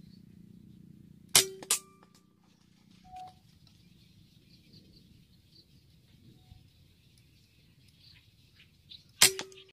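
Two air rifle shots, each a sharp crack with a short metallic ring. The first comes about a second and a half in, followed a moment later by a second crack; the other comes near the end.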